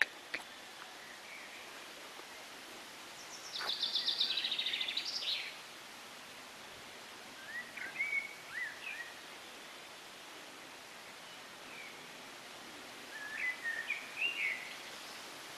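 Songbirds singing in woodland over a steady outdoor hiss: a rapid trilled phrase about three seconds in, then shorter groups of chirps around eight and thirteen seconds.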